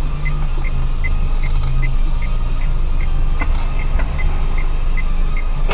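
Car running, heard from inside the cabin as a steady low hum, with a light even ticking about two and a half times a second.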